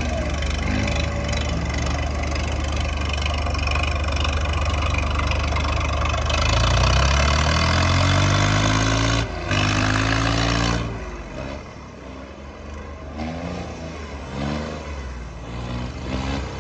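Tractor diesel engines working hard in a tug-of-war, revving higher and louder for a few seconds, then easing off about eleven seconds in, followed by a few short throttle blips.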